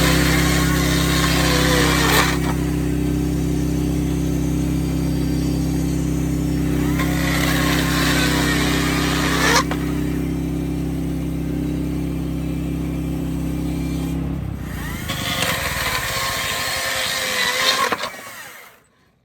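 Bushlander HM122 portable sawmill's engine running steadily, with three bursts of hissing noise a few seconds each laid over it. The engine hum stops about fourteen seconds in, and the sound dies away near the end.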